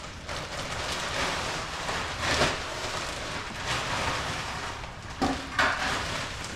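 Soil pouring from a plastic bag into a raised bed: a steady rushing patter, with louder rustles of the bag about two seconds in and again about five seconds in.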